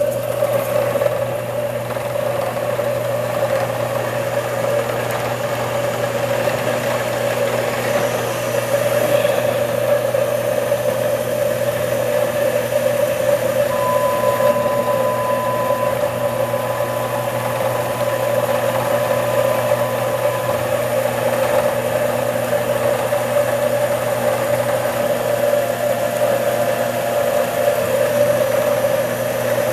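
A small CNC machine switching on and running with a steady mechanical hum. A faint thin higher whine joins for several seconds about halfway through.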